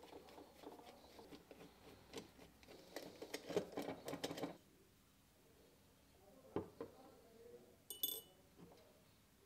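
Faint clicks and scrapes of a screwdriver working the small cover screws of a Bosch warm-up regulator's metal housing as it is taken apart, with the parts handled on the bench. Near the end a small metal part gives a brief, high ring.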